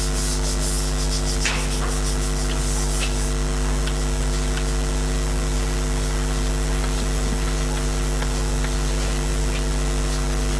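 Steady electrical mains hum with a ladder of overtones, the loudest sound throughout. In the first few seconds there is faint rubbing as a hand wipes the chalkboard, then light chalk ticks and scratches as he writes.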